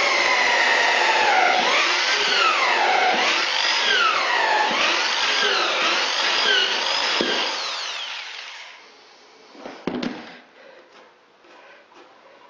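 Electric drill boring through a wooden floorboard and the joist beneath it, its pitch rising and falling as the bit works. It winds down about eight seconds in, and a single knock follows a couple of seconds later.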